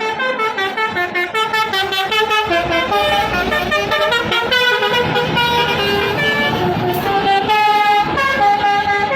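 Bus fitted with a Basuri 'telolet' multi-tone musical horn, playing a quick tune of short notes that step up and down in pitch, several tones sounding together.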